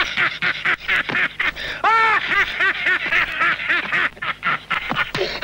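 An old man cackling with laughter: a long, rapid run of short, high-pitched 'ha' bursts, about three or four a second, loudest about two seconds in.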